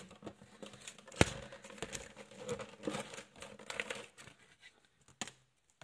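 Plastic and cardboard packaging being handled: light crinkling and small clicks, with one sharp click about a second in and a couple of taps near the end.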